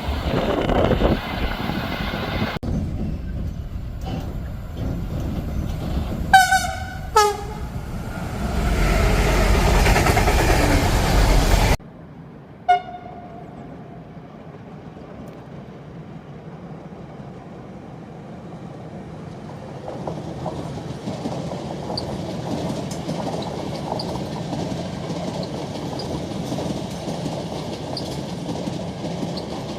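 Train horn sounding two short blasts, each dropping in pitch, over the loud running rumble of a passing train that stops abruptly. Then a single brief horn toot, and a quieter train approaching, its rail noise slowly rising.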